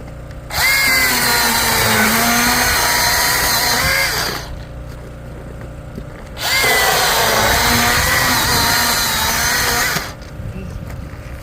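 Milwaukee M18 cordless electric chainsaw running in two bursts of about four seconds each. The motor's whine sags in pitch partway through each burst and climbs back, as it does under load while cutting wood.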